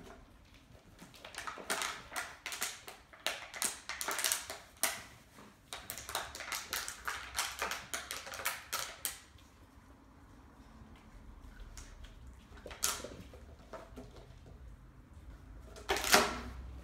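Puppies playing on a hardwood floor: a quick, irregular run of clicks and taps from their claws scrabbling on the boards, then a quieter spell broken by a couple of louder knocks, the loudest near the end.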